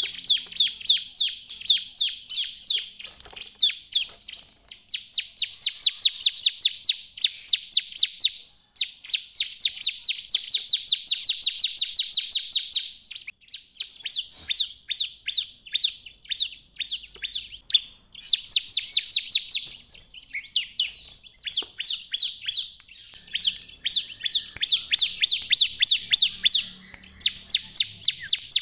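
A bar-winged prinia (ciblek) singing vigorously in full song: rapid trains of sharp, high, repeated notes, about ten a second, in runs of a few seconds broken by short pauses.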